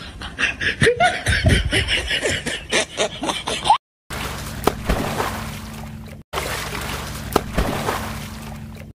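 Snickering laughter, a quick run of short laughs for the first few seconds, cut off abruptly; after the cut, a steady low hum with hiss and a few clicks.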